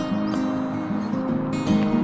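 Background music: a melodic instrumental track with held notes that change in steps.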